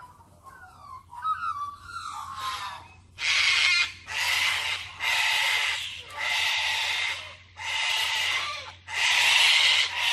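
Sulphur-crested cockatoos calling: soft chirps and whistles for the first few seconds, then a run of about six harsh screeches, each close to a second long.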